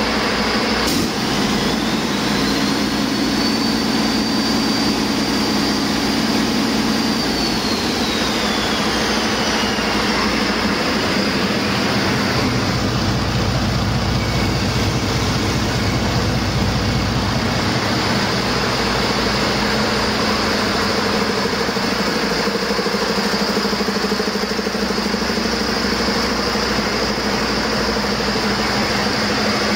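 2020 International A26 inline-six diesel engine running on a test stand. About a second in, a high whine rises and holds, then falls away between about seven and ten seconds in; after that the engine runs steadily.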